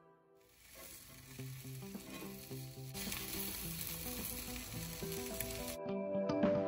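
Sausages sizzling and frying on a hot Glem cast-iron griddle plate. The sizzle comes in about half a second in, grows louder about halfway, and cuts off suddenly near the end.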